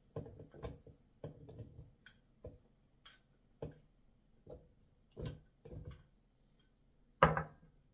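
Chunks of ginger dropping into a plastic blender cup as a wooden spoon scrapes them out of a glass bowl: a string of irregular knocks and taps, with one louder knock near the end.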